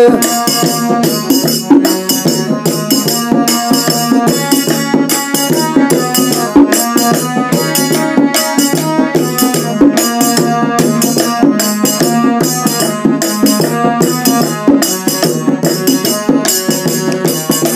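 Instrumental music interlude between sung verses: a melody over a steady percussion beat.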